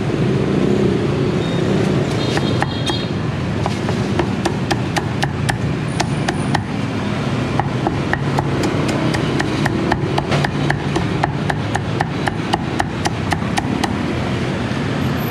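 Cleaver chopping roast pork on a thick round wooden chopping block: a quick run of sharp knocks, about three or four chops a second, starting a couple of seconds in and going steadily until near the end, over steady background noise.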